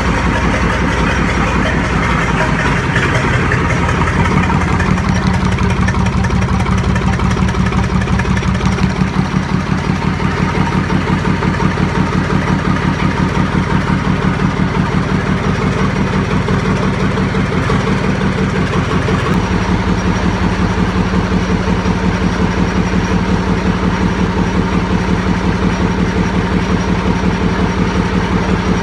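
Freshly overhauled YaMZ-236 V6 diesel engine running on a test stand during its first run after the rebuild, with a fast, even diesel clatter. Its note changes about two-thirds of the way through, as the engine speed shifts.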